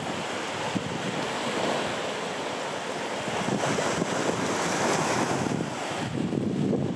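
Surf washing onto a beach: a steady wash of waves, with one swell of hiss building about halfway through and dropping away shortly before the end.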